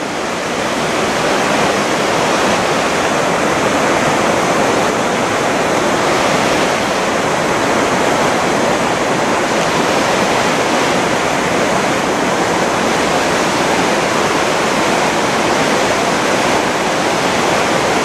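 Latefossen waterfall: a loud, steady rush of falling water, building over the first second or two and then holding even.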